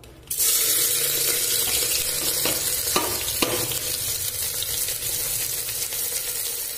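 Sliced onions dropped into hot oil, setting off a loud, steady sizzle that starts suddenly about a third of a second in, with a few sharp clicks around the middle.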